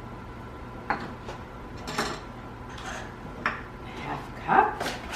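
Measuring cups knocking and scraping against a mixing bowl as flour is scooped and poured in: a few separate clinks and taps, the loudest near the end.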